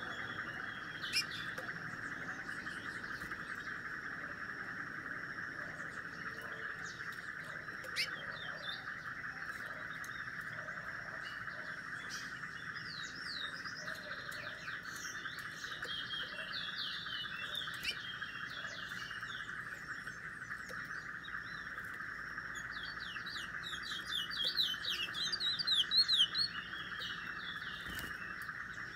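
Small caged songbird chirping in short high bursts, coming thickest near the end in a rapid run of chirps, over a steady background drone.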